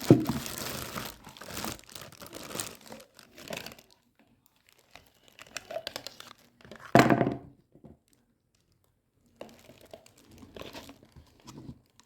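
Packaging being crinkled and torn open by hand, in irregular stretches with short pauses and one louder crackle about seven seconds in.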